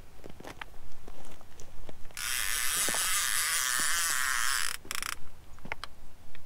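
Fishing reel cranked quickly, a steady whirring of its gears for about two and a half seconds, then a short second burst: line being wound in on a catfish rod. Before it come a few light crunching steps on the rocky bank.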